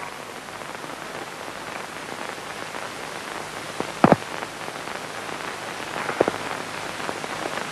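Steady hiss of an old film soundtrack, with a few short sharp clicks, the loudest about four seconds in.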